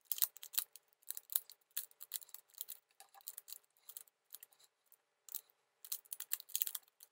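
Plastic mirror cube being turned by hand: quick, irregular clicks and clacks of its layers rotating, in short flurries with brief pauses, busiest near the start and again near the end.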